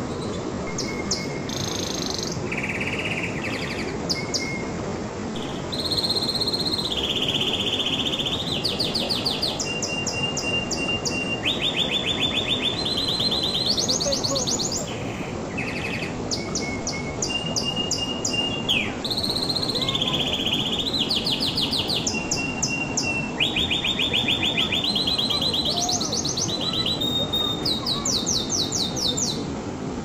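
Domestic canary singing a long, continuous song. It is made of fast trills, each a run of quickly repeated notes held about a second before jumping to a new pitch. A steady low background rush runs underneath.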